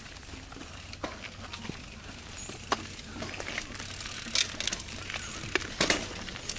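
Mountain bike rolling along a grassy trail: irregular sharp clicks and rattles from the bike's chain and parts as it goes over bumps, over a steady low rumble.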